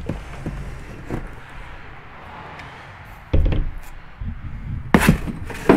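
A cardboard box and its packing being handled as a brake caliper is unpacked: scattered rustling and knocks, with sharp thumps about three seconds in and twice near the end.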